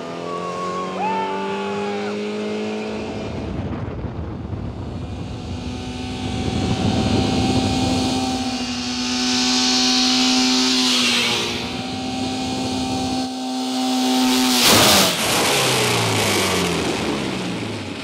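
Car engine revving and running hard as the car accelerates down a gravel road, with tyre and gravel noise swelling as it comes close about ten seconds in. About fifteen seconds in comes a loud crash as the car hits the ramp, after which falling tones trail off.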